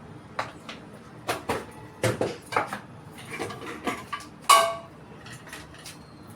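Metal kitchen utensils knocking and clinking against a metal pan, a string of irregular taps. The loudest comes about four and a half seconds in and rings briefly.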